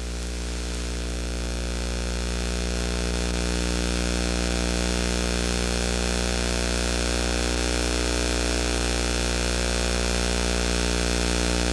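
Steady electrical mains hum with a buzzy stack of overtones over a hiss, slowly growing a little louder over the first few seconds.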